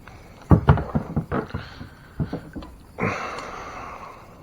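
Handling noises in a kayak with a freshly landed bass: a quick run of knocks and thumps about half a second to two seconds in, then about a second of rustling noise.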